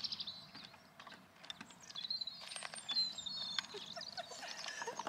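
Small birds chirping and twittering, high and faint, mixed with scattered light clicks and rustles.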